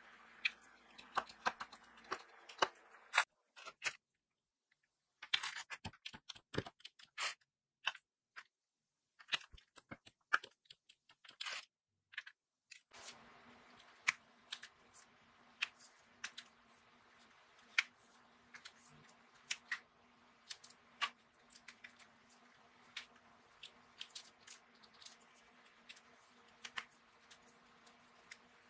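Diamond painting pen pressing round plastic drills onto the sticky canvas one at a time: small sharp clicks and taps at an irregular pace, about one a second later on, with short pauses around four and eight seconds in. A faint steady hum sets in about halfway through.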